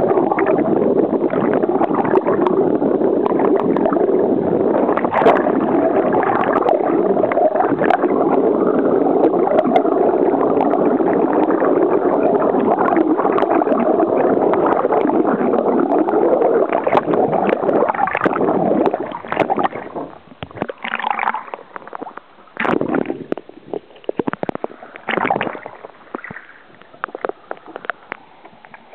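Muffled rushing and gurgling of water streaming past an underwater camera running alongside a sailing double-hull canoe. About nineteen seconds in the camera breaks the surface: the steady rush stops and gives way to separate splashes and water slapping against the hull.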